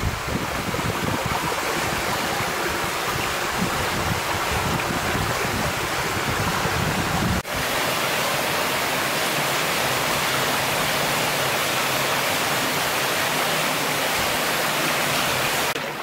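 Small waterfall falling into a rock pool: a steady rush of falling water. It cuts out for an instant about seven and a half seconds in and resumes more evenly.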